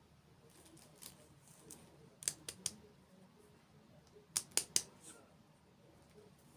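Crisp crunches of hard or crunchy food being bitten and chewed close to the microphone: two quick runs of three sharp cracks about two seconds apart, with a few fainter ones before them.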